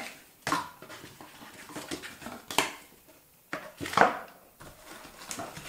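Products being handled and rummaged in an unboxing box: a series of short rustles, taps and knocks, the loudest about four seconds in.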